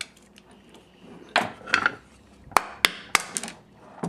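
A small hand tool and metal parts clicking and tapping against an airsoft M4 receiver on a wooden workbench during disassembly. There is a scraping rustle about a second and a half in, then a quick run of sharp clicks around three seconds in.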